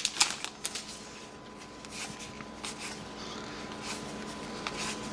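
Trading cards being handled and slid against one another: scattered soft clicks and swishes over a faint steady hum.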